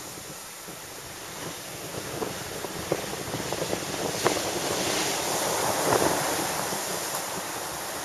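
Heavy surf breaking and rushing up the shore, with wind buffeting the microphone. The wash builds to a loud wave crash about six seconds in.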